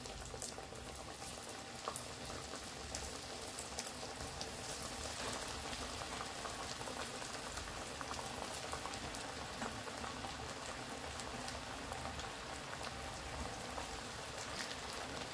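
Cornflake-crumbed chicken strips deep-frying in hot oil in a kadhai: a steady sizzle and bubbling crackle of many small pops.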